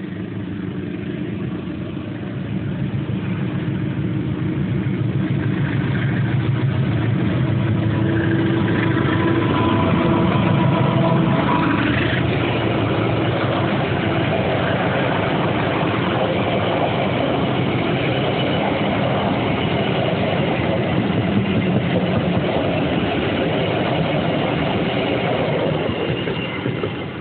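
A CC203 diesel-electric locomotive hauling a passenger train passes close by. Its engine drone builds as it approaches and is loudest around ten to eleven seconds in. Then the steady rumble of the coaches' wheels on the rails goes on until the last cars pass and it fades near the end.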